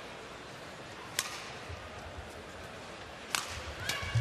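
Badminton racket striking the shuttlecock: one sharp hit on the serve about a second in, then quicker hits near the end as the rally gets going. Low thuds of the players' footwork on the court sit underneath.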